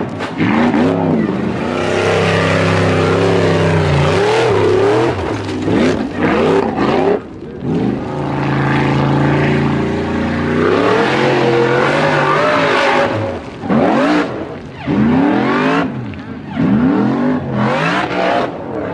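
Formula Offroad hill-climb buggy's engine revving hard. The pitch swings up and down over and over as the throttle is worked, and is held at steady high revs for a couple of seconds around the middle.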